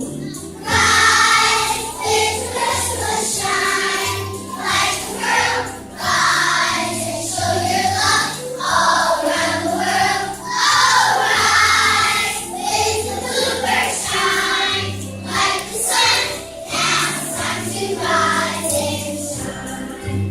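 Large children's choir singing a song together with instrumental accompaniment.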